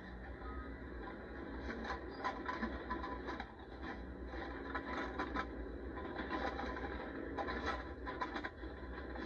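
Irregular scraping and knocking in clusters of quick strokes, over a steady low hum.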